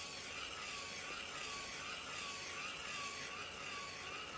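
Small DC gear motor turning the padfoot drum of an RC-converted Bruder CAT toy soil compactor, running with no load: a steady whine with gear noise, wavering in pitch about twice a second.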